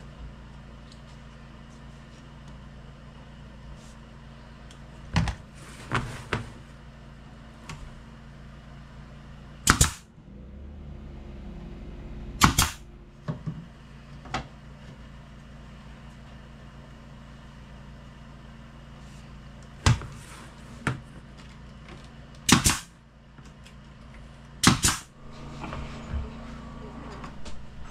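Pneumatic brad nailer firing single shots into cedar and wood cabinet parts, about nine sharp cracks at irregular intervals.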